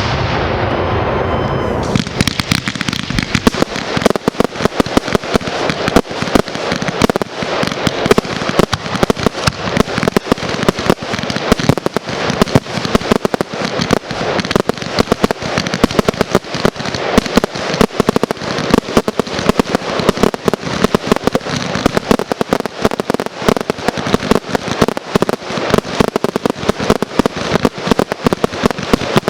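Consumer fireworks display of cakes and aerial shells firing. A hissing rush for about two seconds, then a rapid, continuous barrage of sharp bangs and crackles, many a second.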